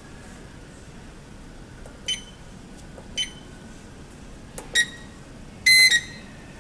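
Control-panel key beeps of a Disen DSB-FM380 hot laminating machine as its buttons are pressed: three short electronic beeps about a second or more apart, then a longer, louder beep near the end.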